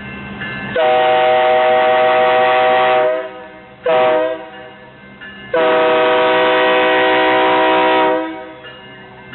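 CSX 3GS21B genset switcher locomotive's air horn blowing for a grade crossing: a long blast, a short one, then another long one, each a steady chord of several notes.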